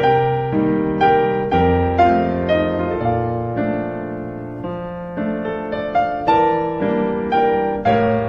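Background piano music: a slow, gentle melody over low bass notes, each note struck and left to fade.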